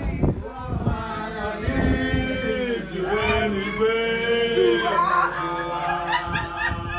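People singing a worship song unaccompanied, with long held notes that slide between pitches.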